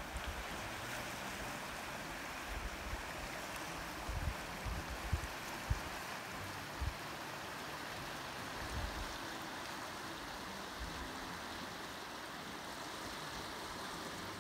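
River rapids rushing over rocks: a steady hiss of running water. A few soft low thumps on the microphone break in between about two and nine seconds in.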